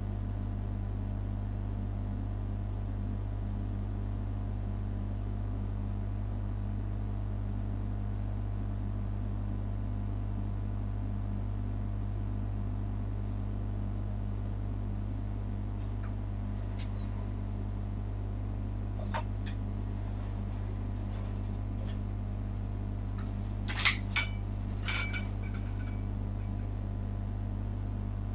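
A steady low hum of room noise runs unchanged throughout. A few faint clicks come in the second half, and a louder pair of sharp clicks or knocks comes near the end.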